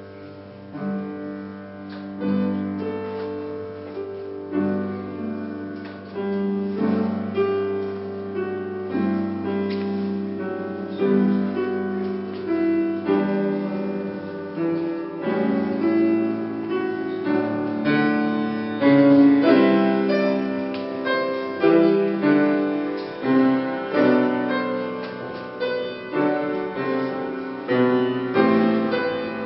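A grand piano being played: a flowing piece of chords and melody, getting louder in the second half.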